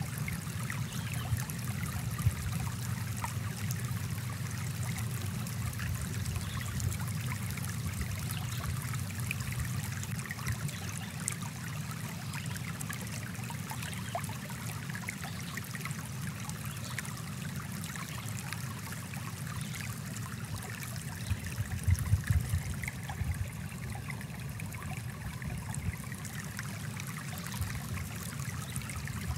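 Water of a small stream running over rocks, a steady rushing and trickling, briefly louder about three quarters of the way through.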